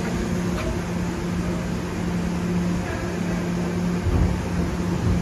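Steady mechanical hum with a low droning tone that holds throughout.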